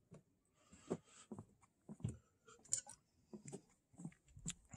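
Faint footsteps on a gravel trail strewn with dry leaves, about two steps a second, each a short scuff.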